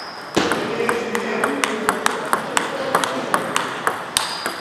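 Table tennis rally: the ball clicking quickly back and forth off bats and table, starting about half a second in with a loud first hit. Clicks from rallies at neighbouring tables are mixed in.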